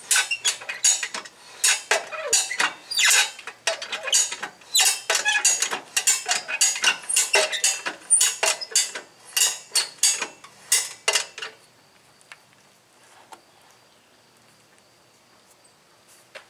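A jack being worked to lift a garden tractor: repeated metallic ratcheting strokes, about two a second. They stop about eleven seconds in.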